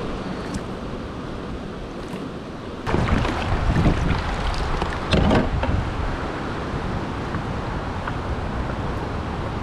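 River water rushing and lapping around a fishing kayak on fast, riffled current. It gets louder and rougher about three seconds in, with a couple of louder splashes around four and five seconds in.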